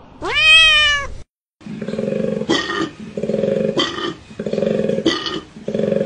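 A girl's voice imitating animals: one pitched call that rises and then falls, then four rough, low roar-like growls about a second apart.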